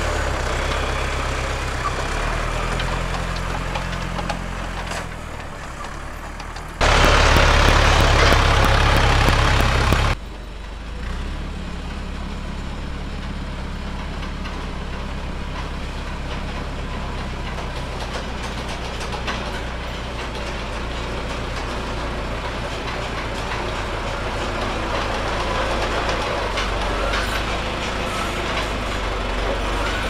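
Farm tractor engine running steadily while towing a portable sawmill on its trailer. About a quarter of the way in there is a louder stretch of about three seconds that starts and stops abruptly.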